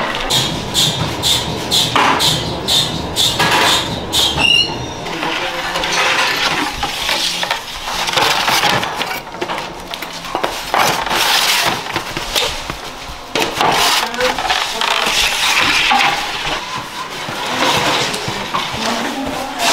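Metal bread tins clattering and scraping on the floor of a wood-fired oven as baked loaves are pulled out with a long peel and gloved hands. A quick run of knocks and clinks comes in the first few seconds with a short metallic ring at about four seconds, then irregular scraping and clatter.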